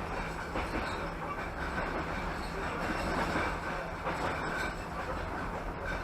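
Passenger train coach running along the line, heard from inside: a steady rumble of wheels on rails.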